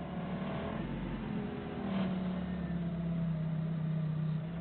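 Doosan 4.5-ton forklift engine running under load, rising in pitch about two seconds in and holding there as the forklift drives its front wheels up onto a curb.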